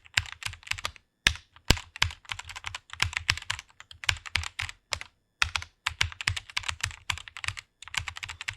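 Fast typing on a computer keyboard: rapid runs of key clicks, several strokes a second, broken by brief pauses about a second in, near the middle and near the end.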